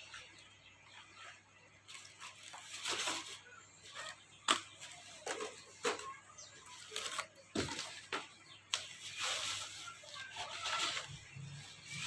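Handling of unpacked cookware: plastic packaging rustling, with scattered sharp clicks and knocks as the pans and their detachable handles are picked up and set down. The loudest click comes about four and a half seconds in.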